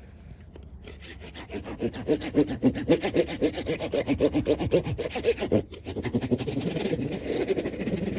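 A hand saw cutting a piece of a gate latch to size, in quick, even back-and-forth strokes that start about a second in, pause briefly past halfway, then carry on.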